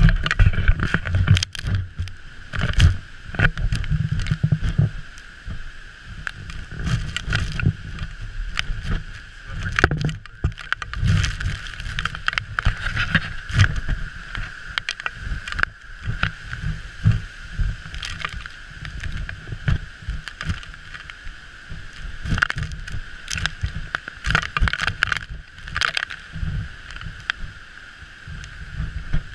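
Uneven low rumbling inside a cruise ship's aft dining room as the ship pitches through a heavy storm sea, with frequent knocks and rattles.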